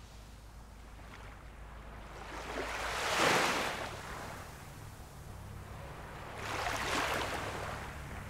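Ocean waves washing in: two slow swells of surf, the first peaking about three seconds in and the second about seven seconds in, over a faint low steady hum.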